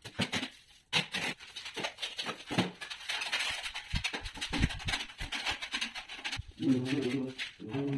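Steel trowel scraping and clicking irregularly against mortar and a plastic bucket as cement mortar is scooped and worked. A brief voice-like pitched call comes near the end.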